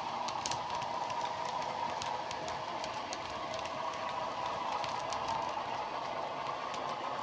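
Model train running along the track of a model railway, a steady hum with scattered sharp clicks as its wheels pass over the rail joints.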